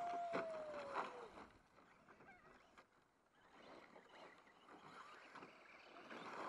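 Electric radio-controlled short-course truck running: a faint motor whine that drops in pitch over about a second as it slows, with scattered knocks and crunches, loudest near the start.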